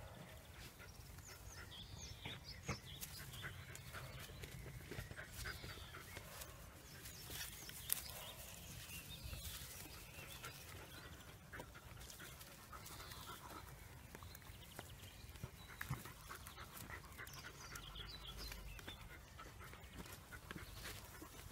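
Cavalier King Charles Spaniel puppies at play, faintly panting, with scattered light clicks and knocks.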